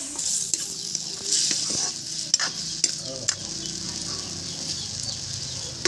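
Steel ladle stirring a meat curry in a wok over a wood fire, knocking and scraping against the pan several times over a steady sizzle.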